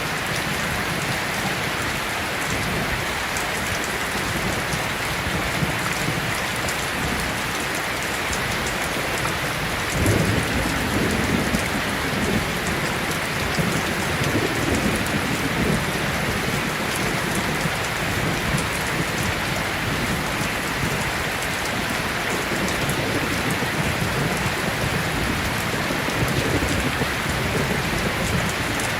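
Steady rain falling, with a roll of thunder that breaks in suddenly about a third of the way in and rumbles on for several seconds.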